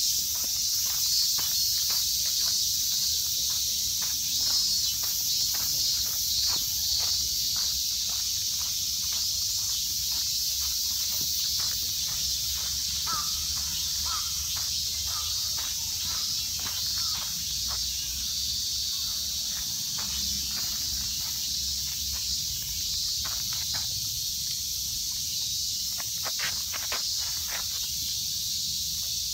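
A steady, high-pitched chorus of insects, with light footsteps on a dirt ground as a small dog walks about.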